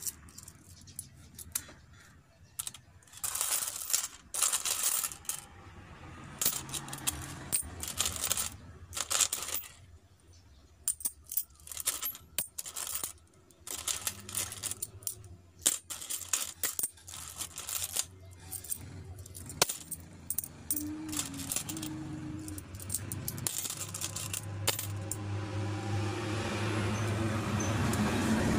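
Philippine peso coins clinking against each other and the counter as they are counted out by hand, in quick irregular clusters of clinks with short pauses between. A low rumble builds near the end.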